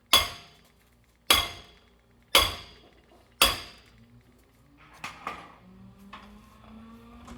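A hammer striking the metal of a seized Wilton bullet vise four times, about one blow a second, each blow ringing briefly; a few lighter clinks follow.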